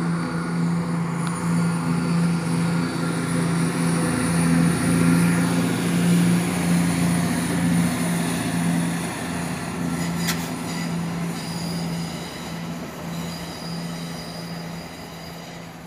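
CrossCountry diesel multiple unit's underfloor engines giving a steady low drone as the train pulls away, slowly fading as it goes. Thin high-pitched wheel squeal sits over it, with a single sharp click about ten seconds in.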